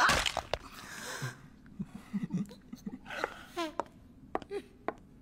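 Sound effects of a vampire biting into a man's neck: a sudden loud bite hit at the start, then scattered clicks and short strained breathing sounds, with a brief falling cry about three and a half seconds in.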